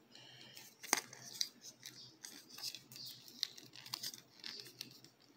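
Hard plastic parts of a Playmates Mutatin' Raphael action figure being twisted and folded in the hands: faint rubbing with scattered small clicks, one sharper click about a second in.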